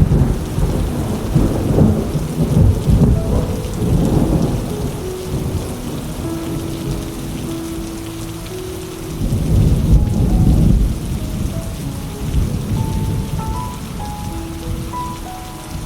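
Steady rain with low rolling thunder rumbling in several swells, the strongest near the start and again about ten seconds in.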